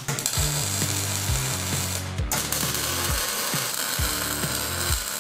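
Background music with a steady beat and a bass line over a dense crackling hiss of metalwork, in which MIG welding is heard; the hiss breaks off for a moment about two seconds in.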